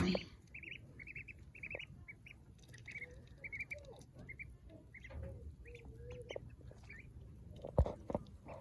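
Ducklings peeping: many short, high-pitched peeps in quick runs. A single sharp knock comes near the end.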